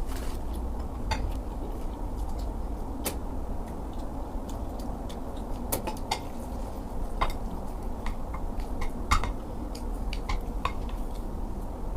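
Eating utensils clinking and scraping against a bowl while bibimbap is eaten: about a dozen irregular sharp clicks, over a steady low background hum.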